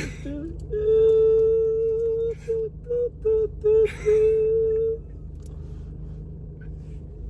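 A woman's voice sings a wordless, celebratory tune on nearly one high note: a long held note, then four short notes, then another long held note. A low steady hum runs underneath.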